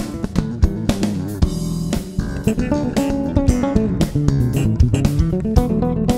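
Instrumental funk-jazz played by electric bağlama, bass guitar and drum kit: plucked melodic lines over a bass line and drum beat.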